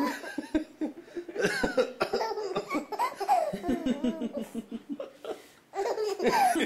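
Coughing, with a baby laughing in bursts in answer to the coughs. There is a brief lull about five and a half seconds in.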